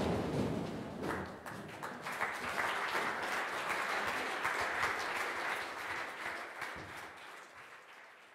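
Audience applauding. The applause follows a crash of tumbling cardboard boxes, swells about two seconds in, and fades away near the end.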